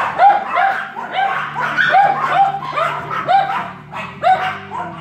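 Dogs barking without a break, a quick run of high-pitched yapping barks about three a second.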